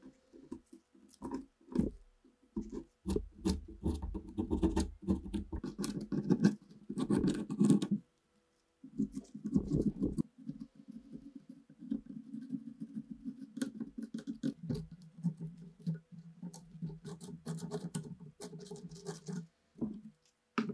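A steel pick scraping and chipping caked dirt and rust off the corroded action of a TOZ-16 rifle, in a run of irregular scratches and small clicks with short pauses.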